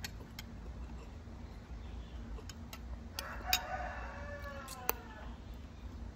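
A metal spoon clinking a few times against a glass plate. About three seconds in, a drawn-out animal call with a falling end lasts about two seconds.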